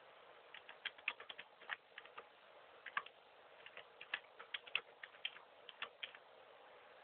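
A quick, irregular series of light clicks and taps, like keys or buttons being pressed. They start about half a second in and stop about a second before the end.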